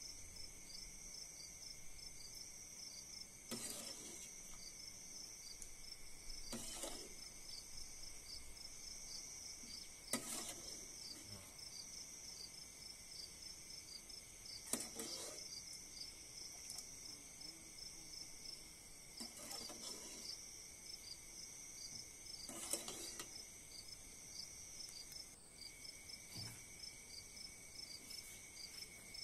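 Insects chirring steadily with a fast pulsing trill, with about six short clinks and knocks of a metal ladle against a metal pot and a ceramic bowl as soup is ladled out.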